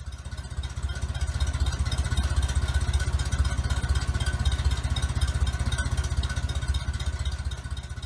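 Tractor engine idling with a steady, rapid firing beat.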